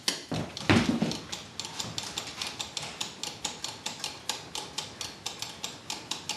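A thump about a second in, then steady rapid ticking, about five even clicks a second.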